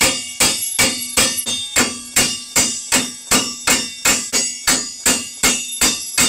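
Two hammers taking turns striking a wrench on a seized nut of a church bell's axle mounting, working it loose. The metal-on-metal blows come in a steady rhythm of about two and a half a second, each with a short ring.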